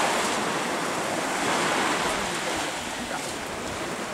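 Small sea waves breaking and washing up onto a sandy beach, a steady rushing surf that slowly grows quieter.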